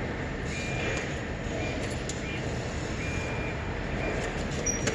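Steady low background rumble at a railway station, with a few short high-pitched beeps in the middle and a sharp click near the end.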